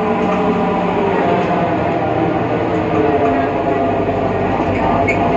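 Interior running sound of a BredaMenariniBus Avancity Plus city bus under way, its Deutz diesel and ZF Ecomat 6HP automatic driveline carrying a steady whine of several tones over the road noise. This is the strange sound that comes from the bus's differential.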